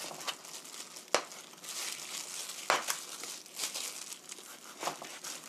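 Kitchen knife slicing raw chicken on a plastic cutting board, with three sharp knocks of the blade on the board a second or two apart, over the crinkling of a plastic food-prep glove.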